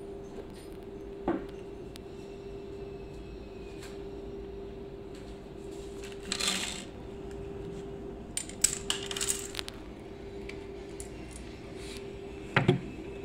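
Scattered metallic clicks and clinks from handling a metal drawer slide against a cabinet side panel: a quick run of clicks about two thirds of the way in and two sharp knocks near the end, over a steady low hum.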